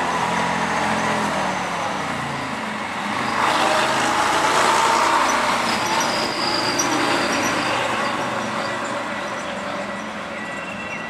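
Vintage half-cab double-decker bus driving past: its engine grows louder as it approaches, is loudest as it passes about four to six seconds in, then fades as it pulls away.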